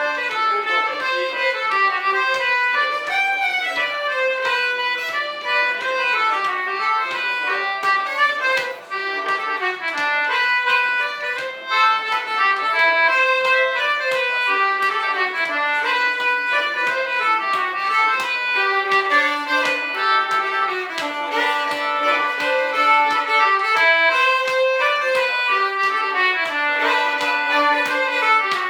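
Fiddle playing a lively folk tune in quick running notes.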